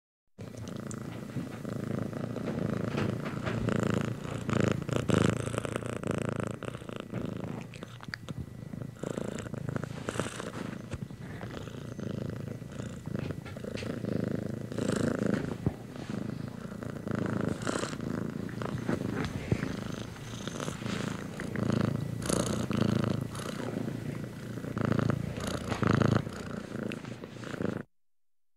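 Domestic cat purring close up, the purr swelling and fading with each breath, with soft rustling of a hand stroking its fur.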